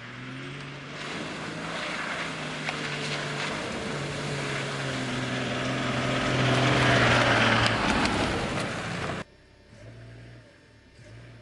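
Toyota Land Cruiser engine running steadily as the vehicle drives off-road, with tyre and ground noise growing louder. About nine seconds in the sound cuts off suddenly, leaving a faint engine hum.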